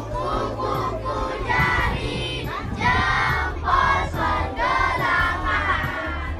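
A group of schoolchildren singing a song together in unison, in short phrases, with a woman's voice among them.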